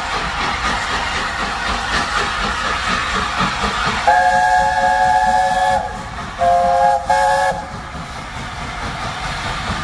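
LNER A4 streamlined steam locomotive sounding its chime whistle, a chord of several notes: one long blast about four seconds in, then two short blasts. This is heard over the steady hiss and rumble of the working engine.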